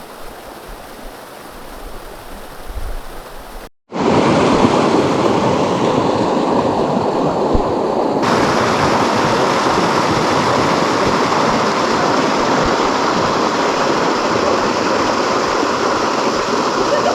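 Rushing water of a tall mountain waterfall: fainter at first, then after an abrupt break about four seconds in, a loud, steady rush heard close up.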